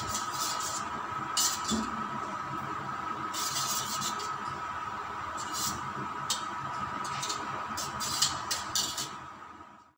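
Raw eggs being beaten by hand in a small steel bowl: a utensil scrapes and clinks irregularly against the metal, with a quick run of clinks near the end. A steady faint hum runs underneath.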